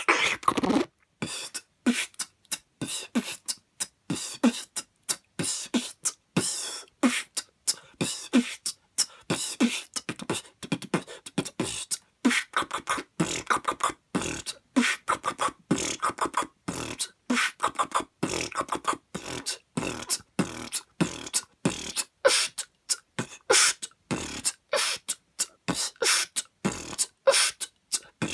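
Freestyle beatboxing: a rapid run of mouth-made kick drums, hi-hat and snare clicks with short pitched vocal sounds in between, held in a steady beat.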